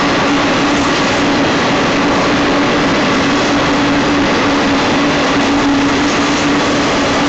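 Double-stack intermodal freight cars of a BNSF Z train rolling past on the rails: a steady, loud wheel-and-rail rumble with a constant low hum.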